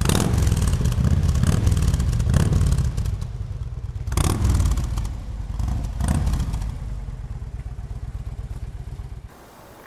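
Motorcycle engine running and being revved in several surges: hard at the start, again about four seconds in and about six seconds in. It then dies away and cuts off suddenly near the end.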